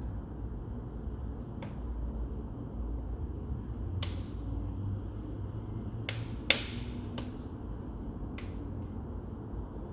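Firewood crackling in a TMF Viziera clean-burn fireplace, burning hard with its air nozzles open: about six sharp pops, the loudest about six and a half seconds in, over a low steady rumble.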